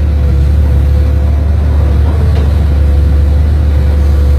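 Excavator diesel engine running steadily under working load, a deep low drone with a steady higher tone above it.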